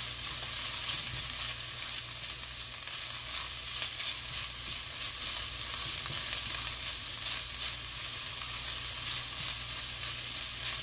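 Smoked herring, onion, carrot and sweet pepper sautéing in oil in a pan: a steady sizzle, with occasional faint clicks.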